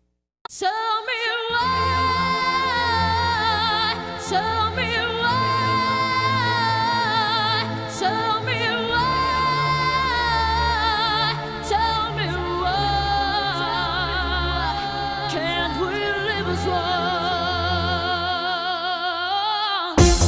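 Opening of a 1990s dance track: a singer holds long, wavering notes over sustained synth chords and bass, with no drums. It starts after half a second of silence, and a dense beat kicks in at the very end.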